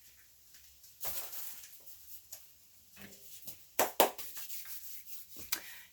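Kitchen handling noises: a rustle about a second in, then a few sharp clicks and knocks around four seconds in and another near the end.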